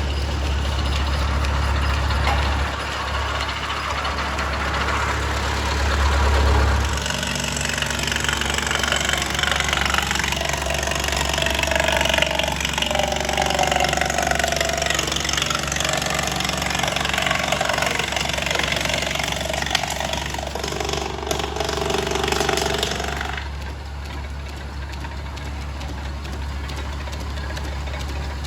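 Farmall Super C tractor's four-cylinder engine running steadily, belt-driving an antique wood planer. About seven seconds in, a board feeds through and the planer's cutter head planes it with a loud, dense cutting noise for about sixteen seconds, which stops suddenly as the board clears, leaving the engine and the planer's running drive.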